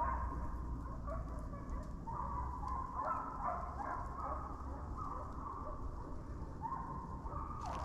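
A pack of deer hounds baying on a track, many overlapping drawn-out cries that keep coming, over a steady low rumble.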